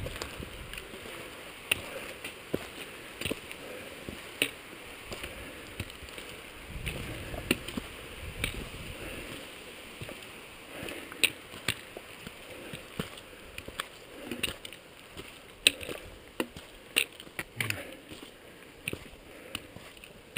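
Hiking footsteps and the sharp, irregular clicks of trekking-pole tips striking rock on a stony trail, over a steady background hiss.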